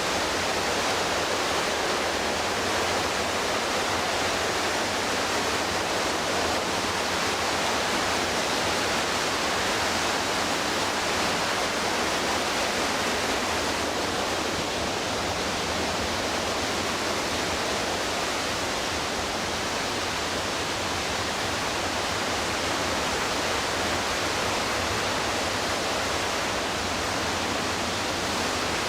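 Rushing white water of the McKenzie River: a steady, even rush of water with no breaks or changes.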